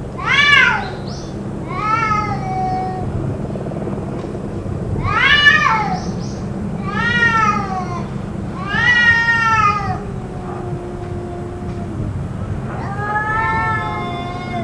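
Cat yowling in long, drawn-out cries, about six in a row, each rising and then falling in pitch; the uploader wonders whether it is a fight.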